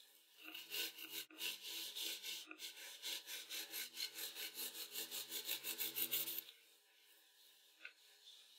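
A knife sawing back and forth through a baked genoise sponge cake, rasping through the crust to take off the browned top. There are about three strokes a second, and they stop about six and a half seconds in once the top comes off.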